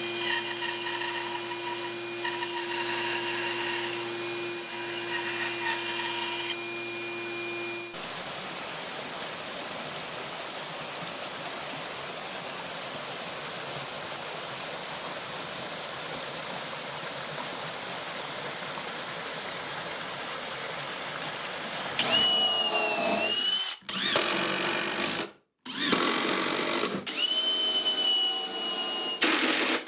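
A bandsaw runs with a steady hum as it cuts a stack of two taped-together wooden pieces; it stops about 8 seconds in. A steady rush of waterfall sound follows, dubbed in place of the sander. Near the end a cordless drill whirs in several short runs, its pitch rising and falling.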